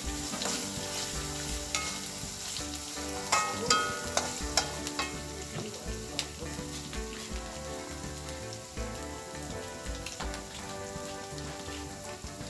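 Spice paste sizzling in hot oil in a wok, with a metal spatula stirring and clacking against the pan several times in the first five seconds. After that the spatula is left in the wok and only the frying sizzle goes on.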